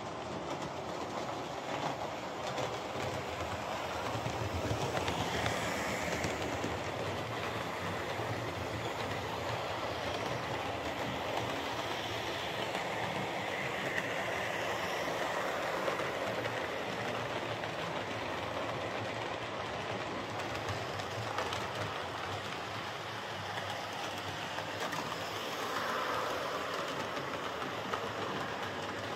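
Hornby King class OO gauge model locomotive running on DC along model railway track: the steady running noise of its motor and wheels on the rails, swelling a little and easing off as it goes.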